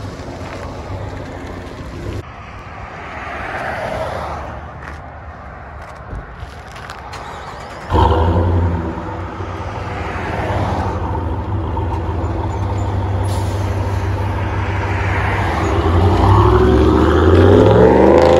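Ram 1500's 5.7 L Hemi V8 through a Corsa cat-back exhaust: a deep, steady exhaust rumble that gets suddenly much louder about eight seconds in, then builds and rises in pitch near the end as the truck pulls away.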